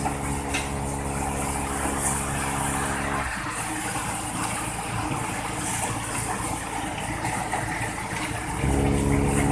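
Heavy truck diesel engine running at raised speed with a steady drone. About three seconds in the drone drops away, leaving a rougher, noisier engine sound, and it returns near the end.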